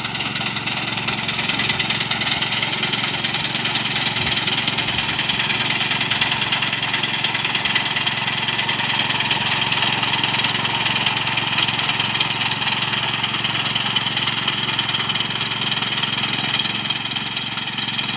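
Engine of a 5 hp Kamco KR 120 walk-behind power reaper running steadily as the reaper cuts standing paddy rice.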